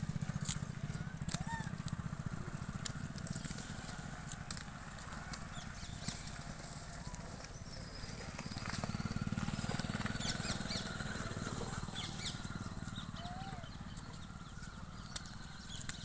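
Outdoor ambience: a steady low hum with scattered clicks and rustles, and a few short bird chirps.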